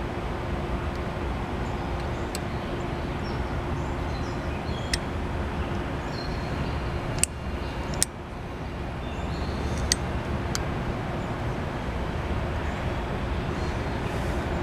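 Oxy-acetylene torch flame hissing steadily, with several short sharp clicks scattered through.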